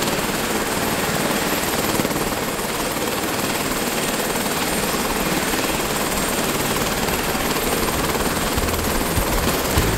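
Tour helicopter running on its landing pad, a loud, steady turbine and rotor noise, with low thumps starting near the end.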